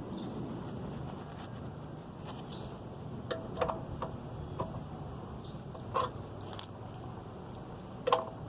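Crickets chirping steadily in the background, broken by about five short metallic clinks of hand tools, the loudest near the end.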